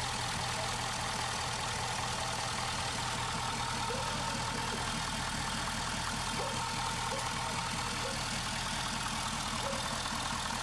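Ford 6.7 L Power Stroke V8 turbo-diesel idling steadily.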